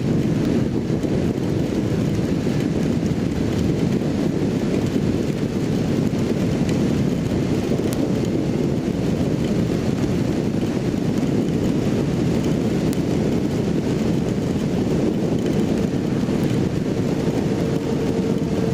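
Kawasaki Z750 inline-four motorcycle running steadily at highway speed, with wind rushing over the microphone.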